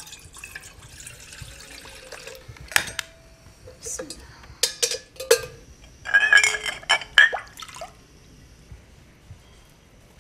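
Water pours from a plastic bottle into a steel pot for the first couple of seconds. Then come a run of sharp clinks of glass and dishes and a louder spell of water sloshing in a glass bowl, before it quietens near the end.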